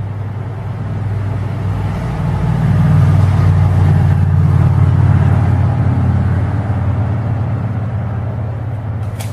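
Truck engine running as it passes, growing louder to a peak about three to five seconds in and then slowly fading. A short click near the end.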